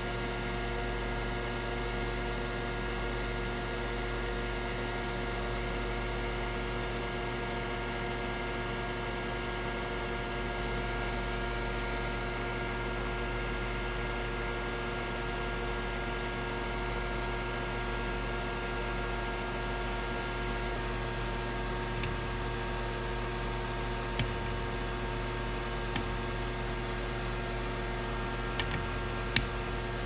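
Steady electrical hum with a constant hiss, with a few faint ticks in the last third.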